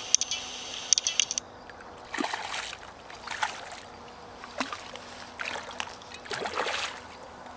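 Water splashing in several short bursts about a second apart, after a brief high buzzing rattle at the start.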